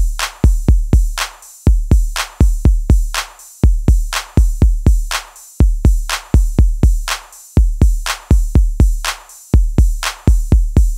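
Electronic background music: a drum-machine beat with heavy bass-drum kicks and sharp, bright hits in a steady repeating pattern.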